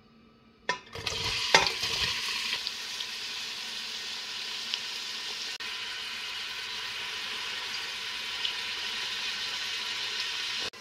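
Chopped onions tipped into hot oil in a stainless steel pot, landing with a few knocks and sizzling loudest as they hit, about a second in. The onions then fry with a steady sizzle that cuts off suddenly near the end.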